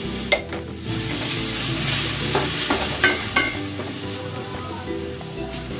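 Corn kernels sizzling in hot oil with sautéed garlic, onion and chicken in a stainless steel pot, stirred with a wooden spatula that clicks against the pot a few times.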